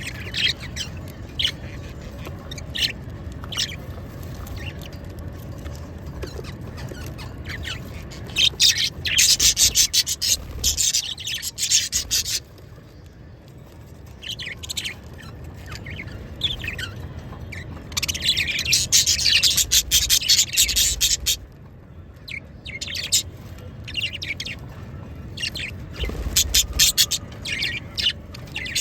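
Budgerigars chirping and chattering: scattered short high chirps, with two bouts of rapid, dense chatter about a third and about two thirds of the way through.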